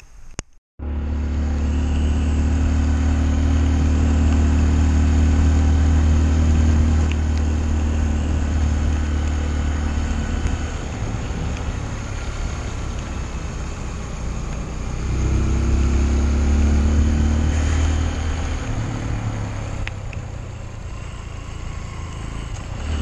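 Honda CRF150L's single-cylinder four-stroke engine running as the bike is ridden, heard on board. The engine note starts abruptly about a second in, swells around fifteen seconds in, and eases off a few seconds later.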